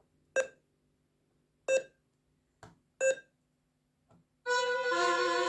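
Morse-code telegraph beeps from a Lego robotics program: three short electronic beeps about 1.3 seconds apart, the dots of the letter S in an SOS. A couple of faint clicks follow, and about four and a half seconds in a loud, sustained bell-like ringing tone starts, the bell that signals the letter is finished.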